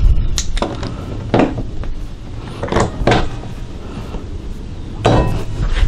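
A handful of irregular knocks and clunks as a locking C-clamp and 2x4 framing are handled on a wooden workbench while a corner of the frame is clamped.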